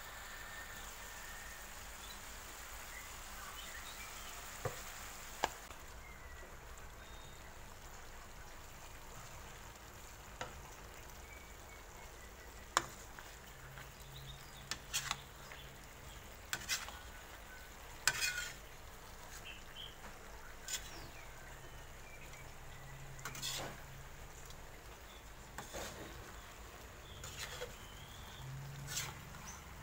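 Fish, chillies and spring onions sizzling in a wok while a metal spatula stirs them, knocking and scraping against the pan every couple of seconds.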